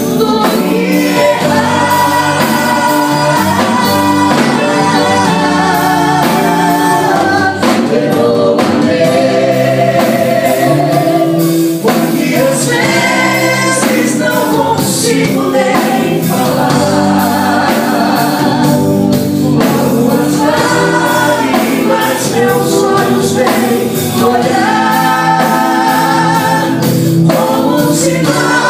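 A woman singing a gospel worship song into a microphone over musical accompaniment, with long held notes sung with vibrato.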